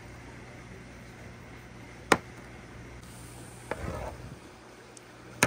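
Glass marbles being set down by hand on a pegboard and tapping against each other, giving a few sharp clicks. The loudest comes about two seconds in and another near the end, with a brief clatter just before four seconds.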